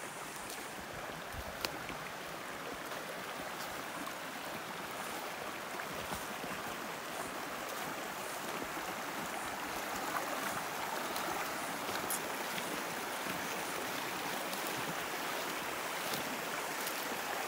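Creek water running after rain, a steady rushing that grows gradually louder, with a few faint sharp ticks.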